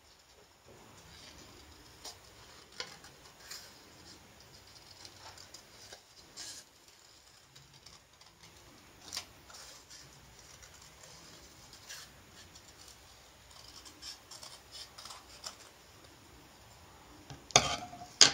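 Scissors cutting paper in short, irregular snips. A louder clatter near the end as the scissors are set down on the wooden table.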